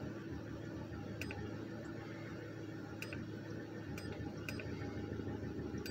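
Five sharp clicks at irregular intervals, one to two seconds apart, as the buttons of a handheld OBD code reader are pressed, over a steady low hum.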